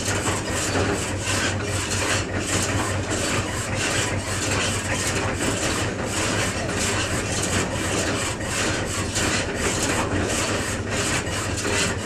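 A tractor engine running steadily at idle, with a fast, regular rasping clatter over it, about three to four strokes a second.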